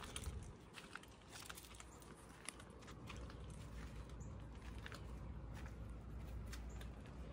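Faint footsteps on a gravel and dirt path, heard as scattered small clicks and scuffs, with a low rumble that grows steadier about three seconds in.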